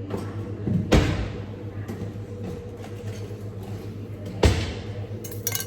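Two sharp knocks, about a second in and again about three and a half seconds later, of objects being handled and set down, with a short rustle near the end over a steady low hum.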